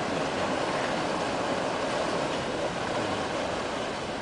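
Steady rushing noise of a large Coast Guard ship's thrusters and engines working close alongside as it berths, with no distinct beats or tones.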